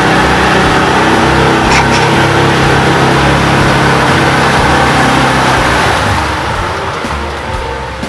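Off-road vehicle engine running steadily under load through a flooded, muddy trail, with a wide rushing noise of water and mud around it; the sound eases off about six seconds in.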